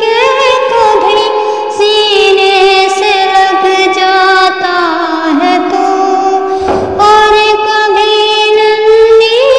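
A woman singing solo, holding long drawn-out notes that glide between pitches with vibrato, with a brief break for breath about two-thirds of the way through.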